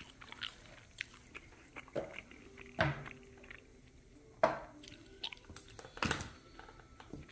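Raw steaks handled on a wooden cutting board: wet slaps and squishes of meat, with a few louder smacks about 3, 4.5 and 6 seconds in.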